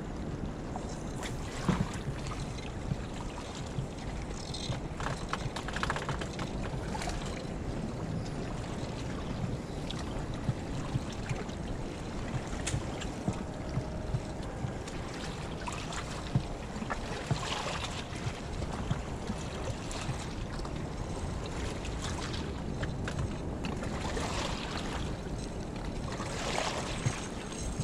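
Steady wind rumble on the microphone with water lapping at a rocky shore, over scattered light clicks and rattles from a spinning reel being wound in.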